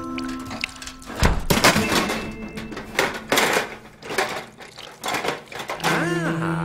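A metal toolbox thuds down about a second in, followed by metal hand tools clattering and clinking as they are rummaged through. Near the end a held music chord comes in.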